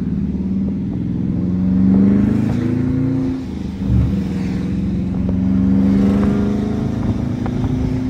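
Dodge Charger R/T's 5.7-litre Hemi V8 heard from inside the cabin, accelerating: the engine note climbs, drops with an upshift about three and a half seconds in, climbs again, then eases off near the end.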